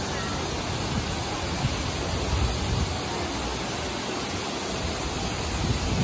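Shifen Waterfall's broad curtain of water falling onto rock and into the plunge pool, a steady, even rush of water noise.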